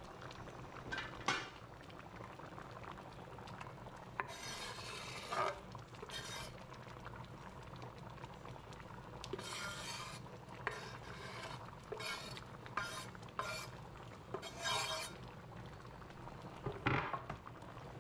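A kitchen knife scraping chopped onion, scallion and garlic off a bamboo cutting board into a pot, with scattered scrapes and clinks of utensils against the pot. Under them the stew simmers steadily.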